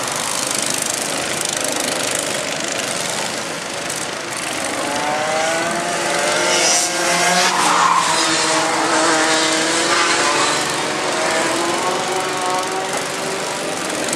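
Go-kart engines running on a track as several karts lap past, revving up and down through the bends. Overlapping engine notes rise and fall in pitch through the middle of the stretch, over a steady noisy background.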